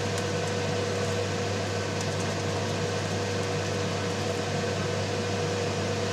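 Steady machine hum, like a motor-driven fan, with a constant whining tone over an even hiss and a few faint ticks.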